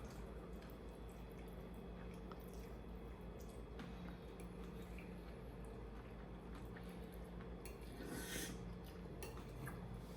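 Quiet room with a steady low hum, faint clicks of utensils on dishes, and a short wet eating sound about eight seconds in as cold noodles are tasted.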